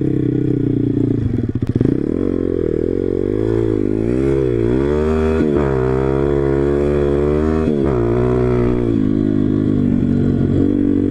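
MRF 140 RC-Z pit bike's four-stroke single-cylinder engine running under way, the revs rising and falling over and over, with a couple of sudden dips. The engine is in its running-in period and is ridden short of full throttle.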